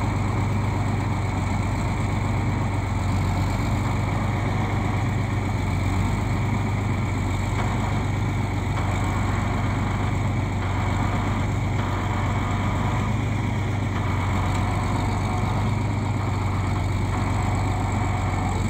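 Caterpillar D6 crawler tractor's diesel engine running at a steady speed, a constant low hum, while it pushes a heavy load.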